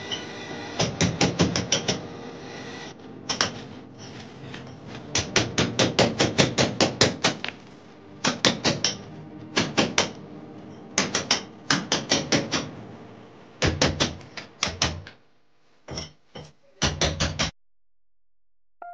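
Hammer driving a chisel into a brick wall to cut a groove for electrical conduit: quick runs of sharp blows, several a second, with short pauses between runs, stopping shortly before the end.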